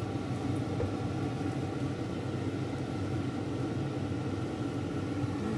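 Steady low mechanical hum of a running kitchen appliance, even throughout with no changes.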